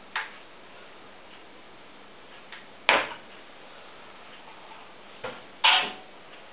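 A few sharp knocks and clatters, each dying away quickly, the loudest about three seconds in and another near the end.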